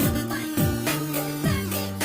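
Background music with a steady beat and a bass line that slides down in pitch again and again.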